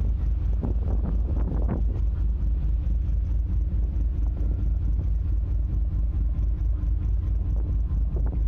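Steady low engine rumble of the drift-ice icebreaker sightseeing ship Aurora, with an even throb underneath and a faint steady hum above it. Faint voices come through in the first two seconds.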